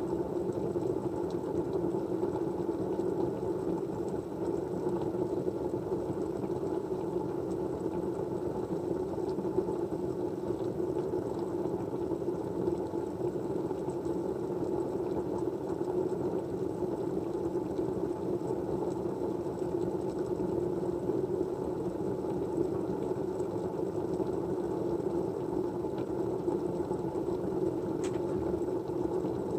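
Steady white-noise backdrop: an even, low rushing hum with no rhythm, and a few faint ticks over it.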